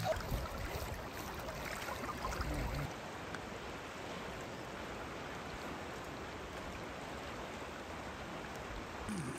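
Steady rush of a fast-flowing river's current, with a low rumble during the first few seconds.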